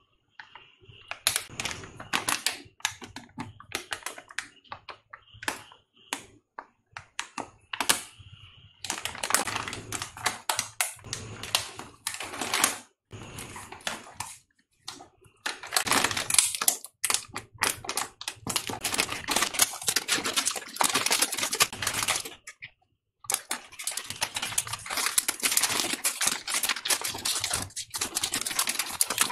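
Crinkling and crackling of a foil-lined plastic potato chip packet as it is handled and torn open, in long bursts broken by a few short pauses.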